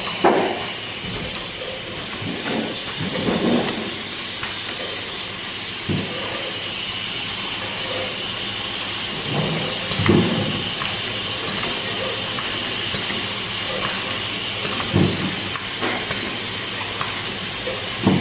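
Automatic syrup bottle filling line running: a steady hiss with a few steady high tones, and a dull knock every four or five seconds.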